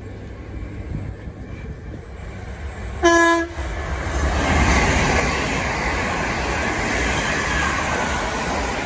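A train sounds one short single-note horn blast about three seconds in, then passes close by with a loud, steady rush of rail noise that eases slightly near the end.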